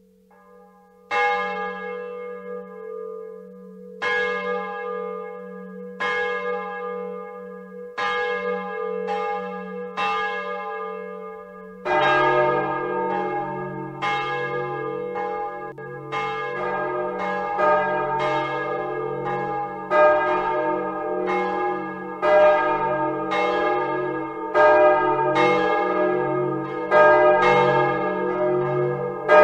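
The swinging church bells of Utrecht's Dom tower pealing over a low, steady hum of ringing bells. At first a few bells strike about every two seconds. From about twelve seconds in, more bells join and strikes come about once a second, overlapping into a full peal.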